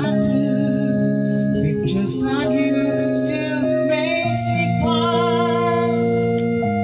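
A man singing karaoke into a microphone over a backing track, played through a videoke amplifier, mixer and equalizer setup. He holds long notes with vibrato over steady accompaniment.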